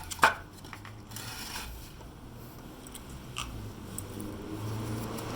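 Porsche 996's flat-six engine idling low and steady after a cold start, with a sharp knock just after the start and a few faint, irregular ticks.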